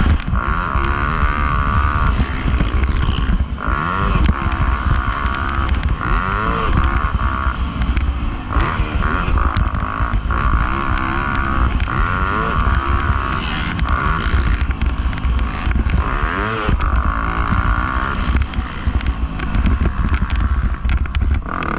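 Dirt bike engine being ridden hard, its pitch repeatedly rising and falling as the throttle is opened and closed, over a constant low rumble.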